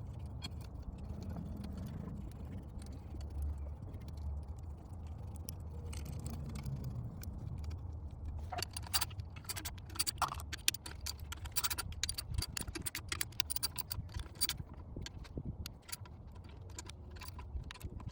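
Small metal clinks and clicks of bolts and a socket wrench as the bolts of an intake manifold's top plate are put in and run down, the clicking starting about halfway through and going on irregularly to the end.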